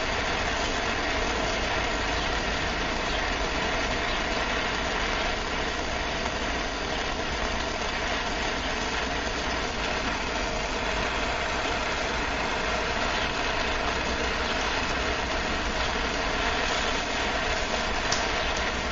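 MAPP gas hand torch burning with a steady rushing hiss, its flame heating the spine of a forged steel knife blade for a differential temper.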